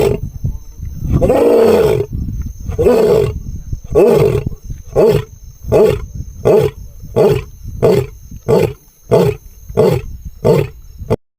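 A lion's roaring bout: three long, full roars, then a run of about ten short grunting roars, roughly one and a half a second. The audio cuts off abruptly near the end.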